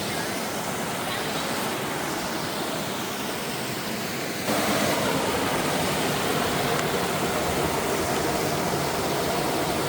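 Waterfall's falling water rushing steadily; about four and a half seconds in it becomes suddenly louder.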